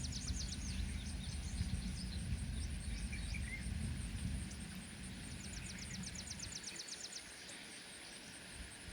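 Outdoor ambience with birds trilling: a rapid run of high notes at the start and another about five and a half seconds in, over a steady faint high-pitched buzz and a low rumble that fades about five seconds in.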